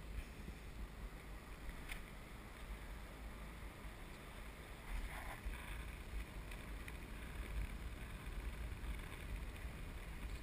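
Wind buffeting the microphone of a camera on a parasail harness, a steady gusting rush and rumble, with a faint click about two seconds in.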